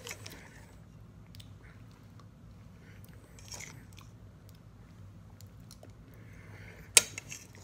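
A person chewing and eating baked potato in close-up, with soft mouth smacks and small utensil ticks. A sharp click about seven seconds in, likely the utensil striking the plate or teeth.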